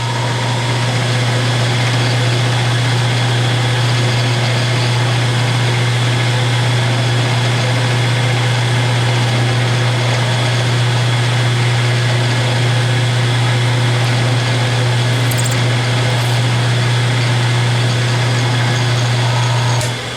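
Milling machine spindle running steadily under power with a small spot drill, a strong low hum that starts suddenly and stops shortly before the end, while the broken screw is spot-drilled.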